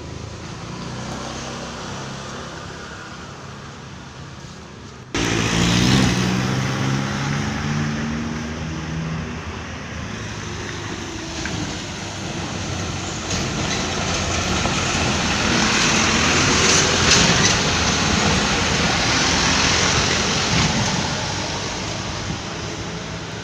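Vehicle engine running steadily, with a sudden jump in loudness about five seconds in and the engine note climbing for a few seconds after it, then a louder wash of road noise.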